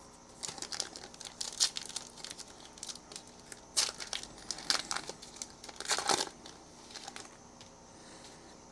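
A trading-card pack wrapper being torn open and crinkled by hand, in a series of irregular crackling bursts, the loudest about four and six seconds in.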